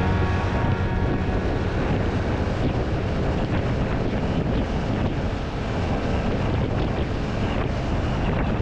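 Wind buffeting a helmet or bike-mounted action-camera microphone while riding a motorcycle at speed, a steady rushing roar with engine and road noise underneath.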